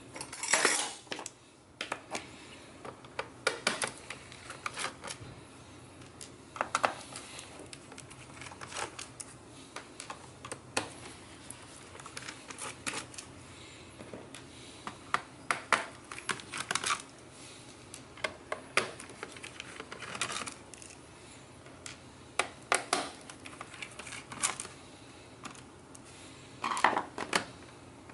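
Irregular small clicks and taps of a screwdriver turning out screws on a laptop's plastic bottom case, with the laptop handled on a hard surface. The clicks come thickest near the start and again near the end.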